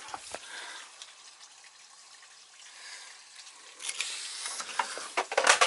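Faint trickling of water as a hot-water heating system drains through hoses into a bucket. Louder rustling and knocking handling noise comes in about four seconds in, loudest near the end.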